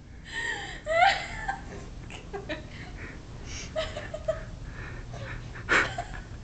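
A person laughing: a giggle about a second in, then quieter breathy chuckles, and a short louder burst near the end.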